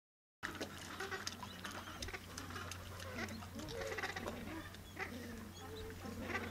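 Gentoo penguins in a colony calling, several overlapping wavering calls, over a steady low hum; the sound starts about half a second in.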